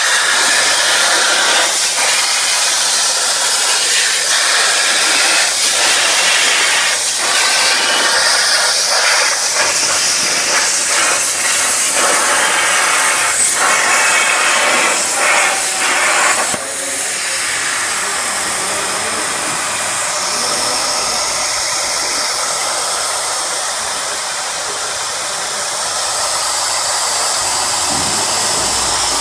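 CNC plasma torch cutting 1.5 mm stainless steel sheet: a loud, steady hiss of the plasma arc and air, with a crackle running through it. About sixteen seconds in, the crackle stops abruptly and a smoother hiss carries on.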